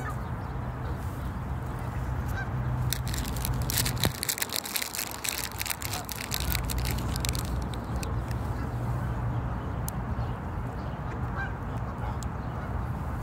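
Canada geese calling at close range over a steady low rumble, with a run of sharp clicks and crackles from about three to seven seconds in.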